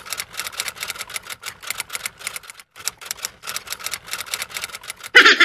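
Typewriter sound effect: a fast run of mechanical key clacks, several a second with a brief pause midway, ending in a louder, fuller clatter about five seconds in.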